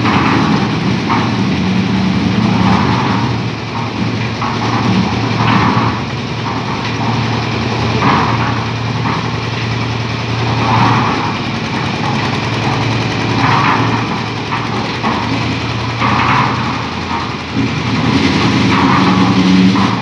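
Concrete mixer's engine running steadily, with a brighter sound coming back about every two and a half seconds.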